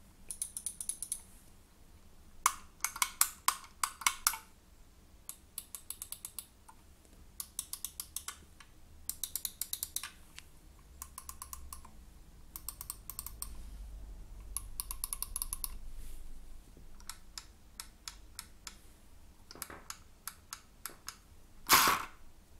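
Logitech G502 Hero gaming mouse buttons pressed one by one: short clusters of sharp clicks, a few at a time, with pauses between them. A louder short noise near the end.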